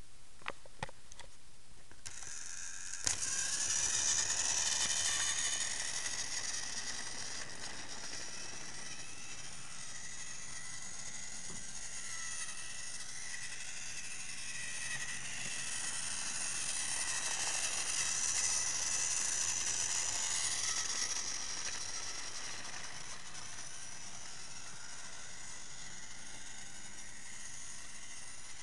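Battery-powered TrackMaster toy engine's motor and gearbox whirring steadily as it runs along plastic track pulling trucks. A few clicks come first, then the whirring starts suddenly about three seconds in and grows louder twice as the engine passes close.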